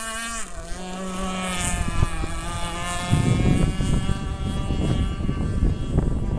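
Seaducer Sport 45 RC hydroplane's 26cc two-stroke gas engine running flat out with a steady high-pitched whine. The whine dips slightly in pitch about half a second in and fades away about three seconds in. After that a low rumble of wind on the microphone takes over.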